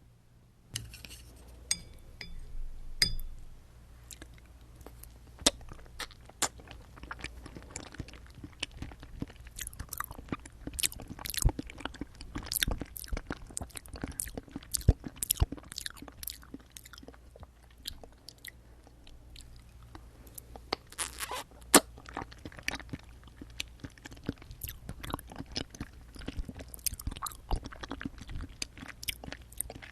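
Close-miked chewing and biting of jelly straws: a dense stream of short, sharp mouth clicks and bites, with busier stretches in the middle and near the end.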